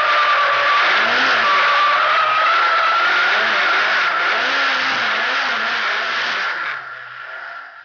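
Drift car's engine heard from inside the cabin, held at high revs with its pitch wavering up and down as the throttle is worked. The sound drops sharply near the end and fades out.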